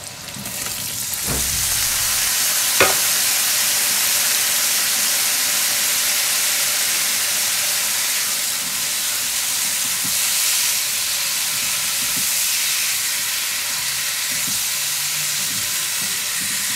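Raw chicken gizzards dropped into hot oil in a wok, sizzling loudly: the sizzle builds over the first two seconds and then holds as a steady frying hiss while they are stirred with a spatula. A single sharp knock about three seconds in.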